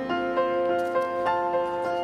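Gentle instrumental background music, with new notes sounding every third of a second or so.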